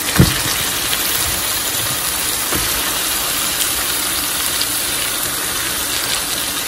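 Steady, loud sizzling of onions frying in hot oil as raw minced chicken goes into the pan, with a thud near the start and a softer knock about two and a half seconds in.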